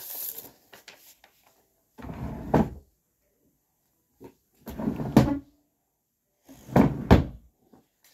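Storage furniture being opened and shut three times: three bursts of sliding and knocking, each under a second long, with quiet between them.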